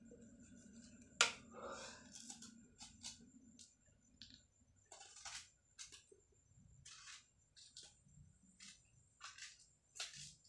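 Small knife cutting and scraping a potato held in the hand: a run of short, scattered scrapes and clicks, with one sharper click about a second in.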